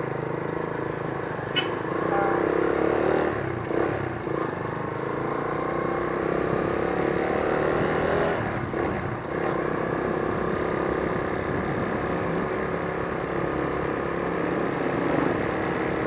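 Motorcycle engine running while the bike is ridden, picked up by an external mic on the rider's helmet. The engine note dips and picks up again a few times, and there is one short click about a second and a half in.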